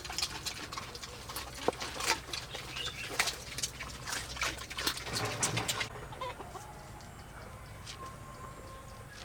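Chickens clucking, with a busy run of sharp taps and clicks over the first six seconds, then it turns quieter.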